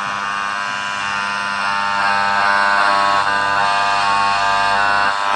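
Radio playing a broadcast through its own speaker: sustained, held musical tones like a jingle or music bed. The radio's sound is working again after the repair of its no-sound fault.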